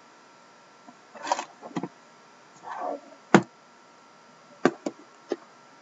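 Shrink-wrapped trading-card boxes being handled: short rustles of plastic wrap and a few sharp taps, the loudest about three seconds in.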